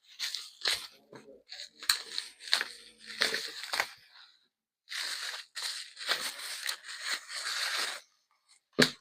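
Packing material around new bike fenders being pulled open and unwrapped: crinkling and tearing in a run of short bursts, then a few seconds of steadier rustling that stops about a second before the end, followed by a single click.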